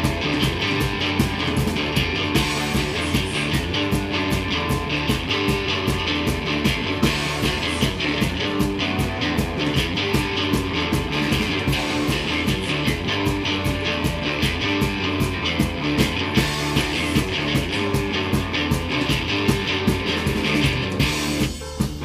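Rock band playing live: electric guitars, bass guitar and drum kit, with a steady beat of drum hits. About twenty-one seconds in the guitars drop away, leaving the drums and bass.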